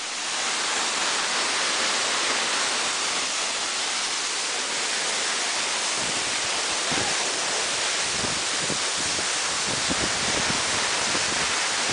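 Waterfall's steady, even rushing noise. Low, gusty rumbles join it from about six seconds in.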